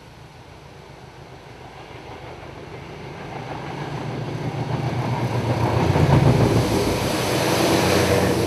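A pair of Class 73 electro-diesel locomotives hauling a rail head treatment train approaches and passes close by. A low drone and rail noise grow steadily louder, peak about six seconds in, and stay loud to the end.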